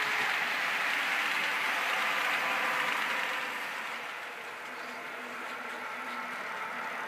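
Bachmann Blue Pullman model train running on its track, its Howes DCC sound playing diesel engine sound from the power cars over the rush and rumble of the model running. The sound fades about four seconds in, then builds again as the train comes closer.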